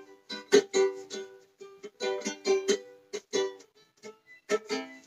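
Ukulele strummed by hand, a run of short ringing chords, moving to a lower chord about four and a half seconds in.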